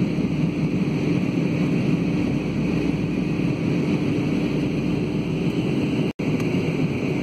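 Steady cabin noise of a jet airliner in descent: engine drone and the rush of airflow, with a steady low hum. The sound cuts out for a split second about six seconds in.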